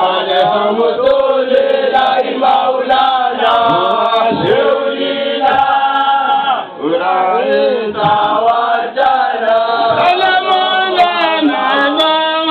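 A group of men chanting a devotional Islamic chant together, many voices holding and sliding between sustained pitches in a repeated melodic line.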